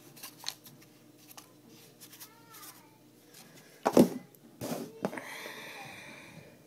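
Handling noise from a phone camera: a few light clicks, then two loud knocks about four and five seconds in as the phone is jostled, followed by a rustling scrape.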